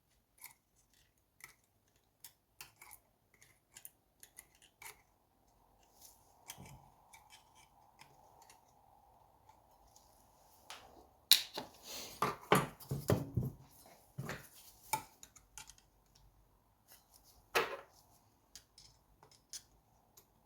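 Small metal clicks and scrapes of a screwdriver picking at thin shims on the crankshaft end of a small two-stroke engine, with a louder spell of clattering scraping about halfway through.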